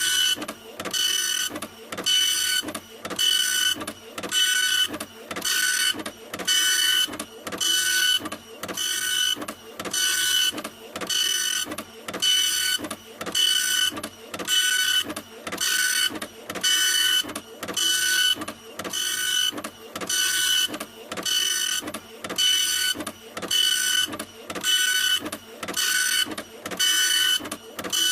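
Printer running continuously, a whirring pass about once a second, each with a steady high whine over a hiss.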